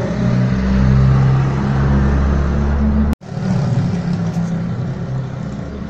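An engine running with a steady low rumble, like a vehicle idling close by. It cuts out abruptly for a moment just after three seconds.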